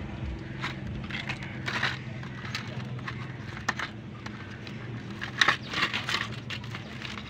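Crinkling and rustling of a clear plastic bag as a hand rummages through it for a remote, in short irregular crackles that grow busier near the end. A faint steady low hum sits underneath and weakens about halfway.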